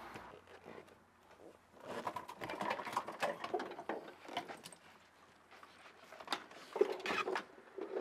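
Light clicks and rattles of plastic dashboard parts and wiring being handled, in a dense run of small knocks for a couple of seconds, then a few sharper clicks near the end.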